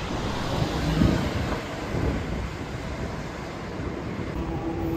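City street ambience: a steady wash of traffic noise with wind on the microphone. A low steady hum comes in near the end.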